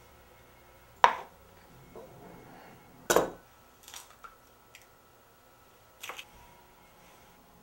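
An egg knocked sharply against the rim of a ceramic mixing bowl, twice, and cracked open, with small clicks as the shell comes apart. A lighter knock follows near the end as the shell is set down on a cutting board.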